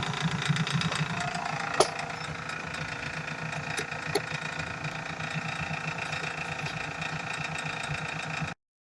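Motor-driven wire wheel spinning steadily with a steady hum, two sharp clicks breaking through; the sound cuts off suddenly near the end.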